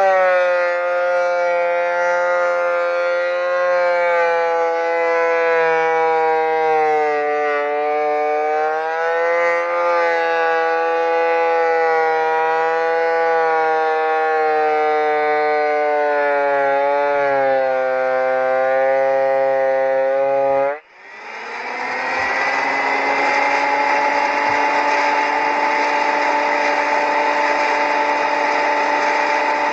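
Delta 22-540 12-inch portable planer running with a high, whining motor, its pitch sagging and wavering as it cuts a board. About 21 seconds in the sound cuts out for a moment, then the motor spins back up to a steady whine.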